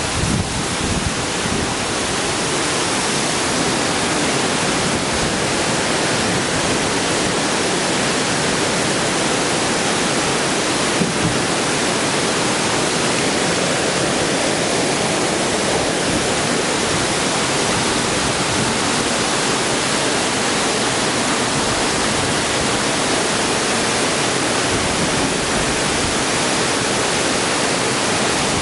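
Floodwater rushing steadily: a loud, even hiss of fast-moving water that holds unchanged throughout.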